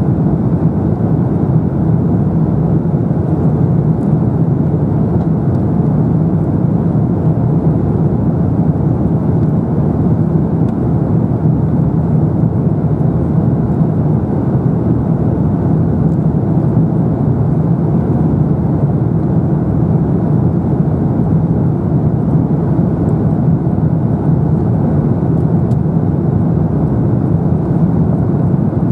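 Steady cabin noise inside an Airbus A350-900 in flight: a low, even rush of airflow and Rolls-Royce Trent XWB engine noise, unchanging throughout.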